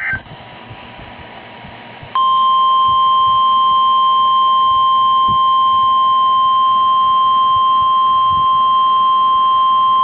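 NOAA Weather Radio warning alarm tone (1050 Hz) played through a Midland weather radio's speaker: after a brief chirp and a couple of seconds of radio hiss, one long steady high tone comes in about two seconds in and holds. The tone signals that a warning broadcast is about to follow.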